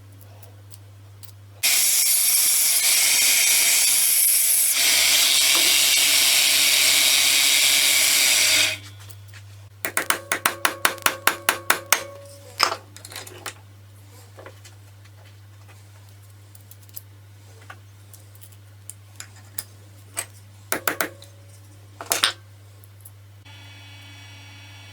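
Angle grinder fitted with a homemade random orbital sanding attachment, running and sanding for about seven seconds as a loud, steady hiss that cuts off sharply. It is followed by a quick run of about a dozen sharp taps and then a few scattered knocks.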